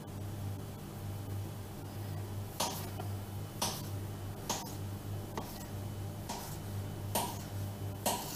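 A row of seven short sharp taps, evenly spaced just under a second apart, as dough is cut into pieces on a stone kitchen countertop, over a low steady hum.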